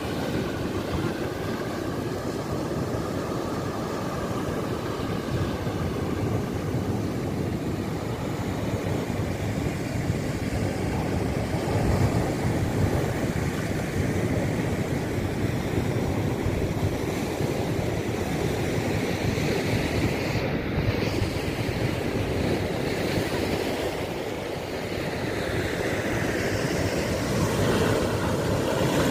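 Sea waves breaking and washing over a rocky shore: a steady rush of surf that swells louder as bigger waves break, about twelve seconds in and again near the end.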